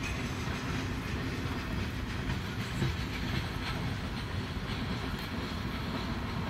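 Freight train cars rolling past: a steady rumble of steel wheels on the rails, with a few faint clicks near the middle.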